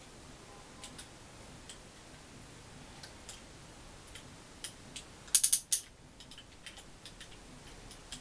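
Small clicks and snaps of a Soul of Chogokin Daizyuzin figure's parts being handled and transformed, with a quick cluster of loud sharp clicks a little past halfway.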